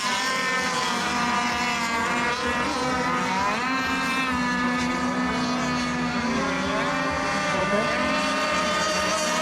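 Several radio-controlled racing boats running on the water together, their motors whining at shifting speeds so the overlapping pitches keep rising and falling as they circle before the start.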